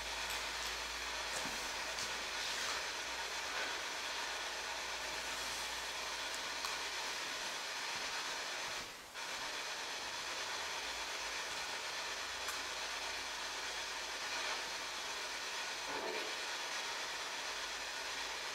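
Static hiss from a P-SB7 spirit box sweeping through radio stations: a steady rush broken by faint short choppy fragments, with a brief drop-out about halfway through. Near the end comes a fragment that the investigators take for a voice saying "Henry".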